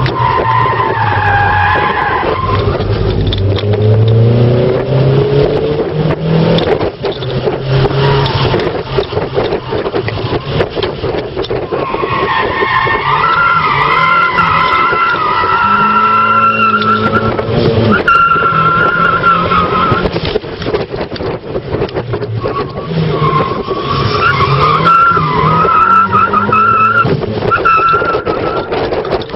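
Toyota Glanza's turbocharged 1.3-litre four-cylinder engine heard from inside the cabin, revving hard on track, with the tyres squealing through corners about midway and again near the end.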